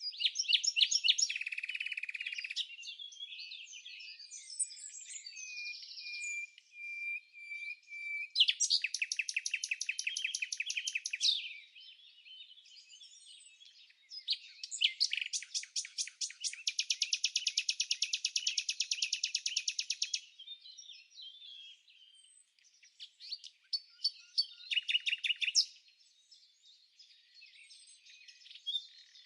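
Songbirds singing: long, rapid, even trills lasting a few seconds each, with shorter chirps and whistled notes between them.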